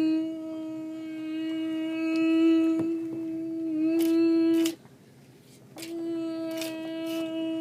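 Hoover Decade 800 upright vacuum cleaner running with a steady whine. About two-thirds through it cuts out abruptly for about a second, with a few clicks, then comes back at the same pitch.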